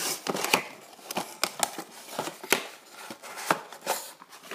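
Cardboard box of a diecast model airliner being handled and opened: a string of irregular sharp clicks and taps of cardboard.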